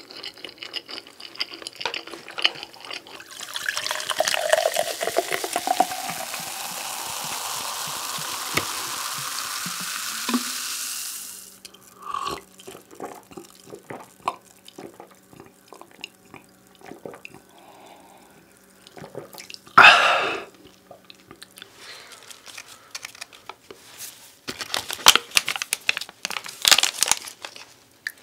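A drink poured steadily into a glass for about eight seconds, the pitch of the pour rising as it fills, then stopping abruptly. Small clicks and eating noises follow, with a few short louder crunches.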